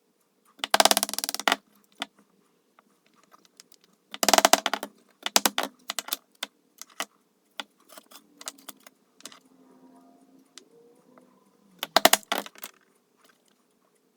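Workshop clatter from hand work on wood: four short bursts of rattling or rasping, about a second in, around four and five seconds, and near the end, with scattered clicks and knocks between.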